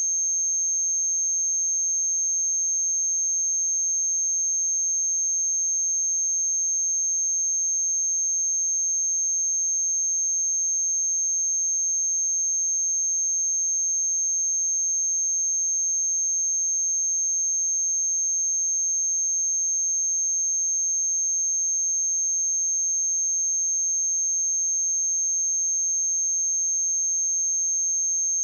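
A pure 6386 Hz sine-wave test tone: one steady, high-pitched electronic tone held at constant pitch and level.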